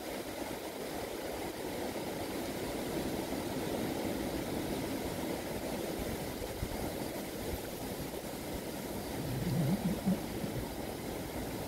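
Steady low rumble of outdoor background noise, with a brief low, wavering tone about nine to ten seconds in.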